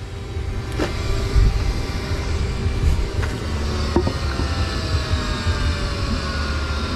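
A steady low rumble with a hum that slowly falls in pitch, like a motor vehicle going by, with a few faint knocks.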